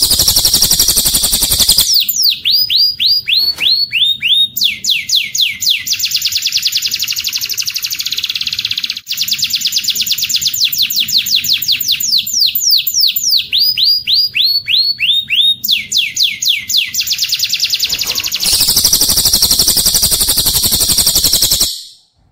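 Recorded song of a cililin joined to canary song, played as a bird-training track: a dense, high trill opens, then long runs of quick downward-sliding whistled notes repeat, first a few a second and then in fast rolls. Another dense trill comes near the end before the sound cuts off suddenly.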